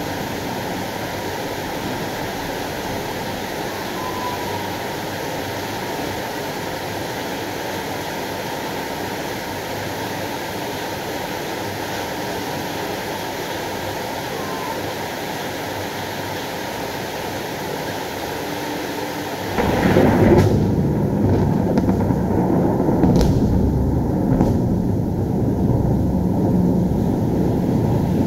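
Thunderstorm: a steady hiss of rain, then about twenty seconds in a loud, deep rumble of thunder sets in suddenly and keeps rolling, with a couple of sharp cracks in it.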